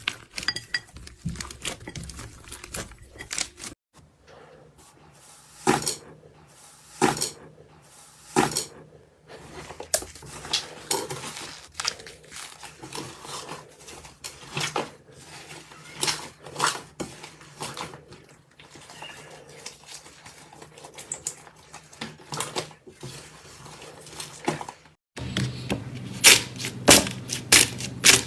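Slime being squeezed and poked by hand, giving sticky crackles and sharp popping clicks in irregular runs. The sound changes abruptly twice where separate clips are cut together; in the last few seconds the clicks come thicker and louder over a low hum.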